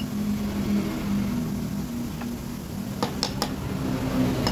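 A few sharp metallic clicks as the blade and its clamp plate are taken out of an electric hand planer's cutter drum, one about two seconds in and three in quick succession about three seconds in, over a steady low hum.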